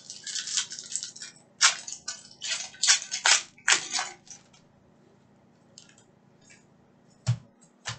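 Foil wrapper of a trading-card pack being torn open and crinkled: a string of sharp crackles over the first four seconds or so. A few sharp clicks come near the end.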